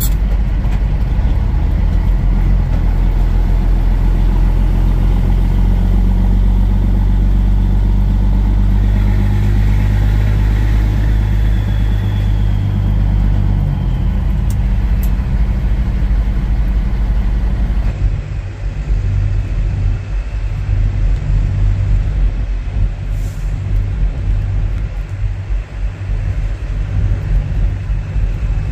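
Semi truck's diesel engine running steadily under way, a loud low drone. About two-thirds through, the steady drone drops away suddenly and gives way to a rougher, uneven rumble.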